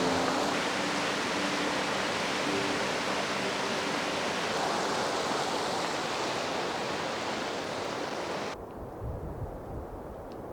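Steady, loud rushing of fast-flowing water, as at a mountain stream or small waterfall. Faint background music fades out in the first few seconds. Near the end the water sound cuts off abruptly and gusts of wind buffet the microphone.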